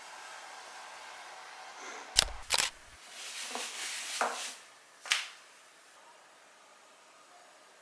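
Two sharp clacks about two seconds in, then a yoga mat being unrolled on the floor: a rustle and two flat slaps as it lands.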